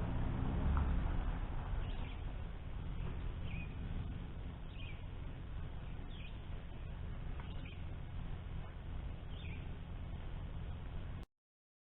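Faint bird chirps, short falling notes repeating every second or so, over a low steady rumble. The sound cuts out abruptly shortly before the end.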